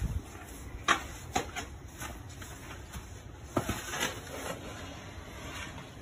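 Snow shovel scraping and pushing snow across a driveway in several short strokes, over a steady low rumble of wind on the microphone.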